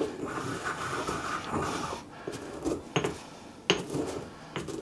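Stone mortar and pestle grinding whole dry spices (cumin, coriander seed, peppercorns): a gritty grinding for about two seconds, then three sharp knocks of the pestle against the stone bowl in the second half.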